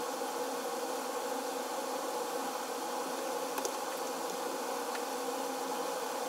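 A steady buzzing hum with a few faint clicks a little past halfway.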